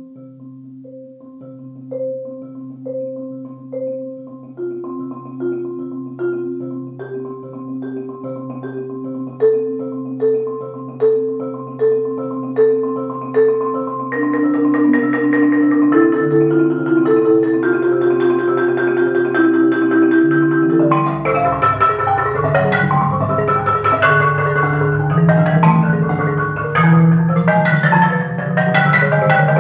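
Solo Bergerault concert marimba played with four mallets. Held low rolls sound under single notes struck about once a second, growing steadily louder and busier. About 21 s in it breaks into a loud, dense passage of fast rolls across the low and middle range.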